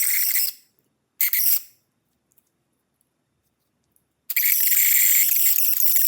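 Small toy DC motor whirring with a high, hissy whine: it is run for two short bursts of about half a second, then switched on again about four seconds in and keeps running steadily.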